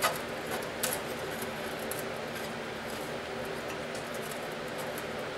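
Steel parts of a sharpener jig being handled and set against each other, a sharp metal click at the start and a couple of lighter taps within the first second, then only a steady background hum.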